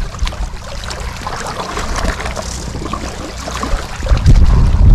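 Water splashing and trickling, with a low rumble of wind on the microphone that grows louder near the end.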